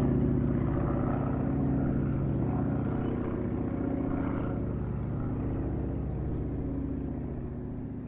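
Small propeller airplane's engine droning steadily, gradually fading as it moves away.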